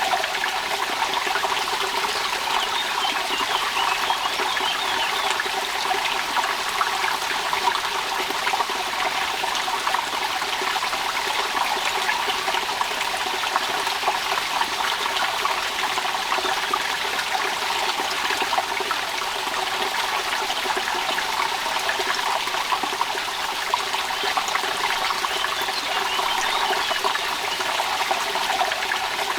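Steady rain falling, with the patter of drops and water trickling.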